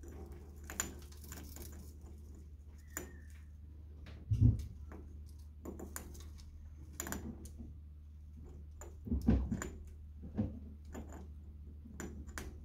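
A chinchilla gnawing a stone block fixed to its cage wire: irregular scraping clicks of its teeth on the stone, wearing down its ever-growing incisors. Two heavier knocks come about four and nine seconds in, over a steady low hum.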